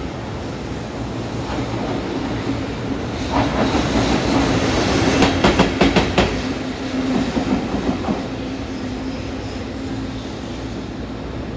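A JNR Class EF65 electric locomotive, running alone, passes with a steady running hum that swells and then fades. About midway its wheels clack over the rail joints in a quick cluster of sharp clicks.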